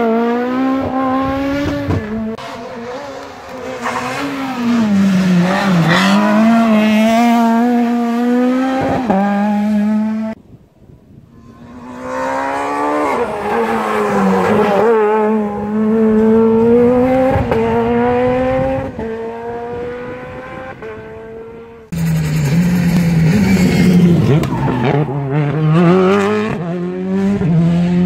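Rally cars driven flat out on a tarmac special stage, one after another, engines revving hard, the pitch climbing and dropping sharply with each gear change. One of the passing cars is a Peugeot 207 rally car.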